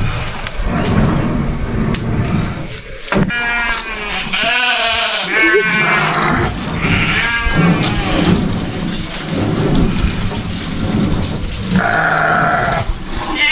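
Farm livestock bleating: several wavering calls about three seconds in, more up to about halfway, and another near the end, over a steady low rushing noise.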